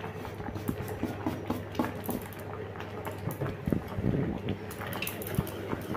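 Metal ladle stirring dal in an open aluminium pressure cooker, with small clinks and scrapes against the pot, busiest about three to four seconds in, over a steady low hum.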